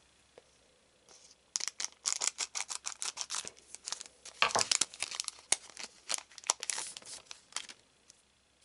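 A foil booster pack wrapper being torn open and crinkled: a rapid run of crackles that starts about one and a half seconds in and stops near the end.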